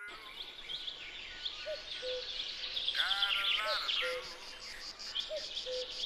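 Birds chirping and calling with short, quick notes, joined about halfway through by a fast, even, pulsing insect trill.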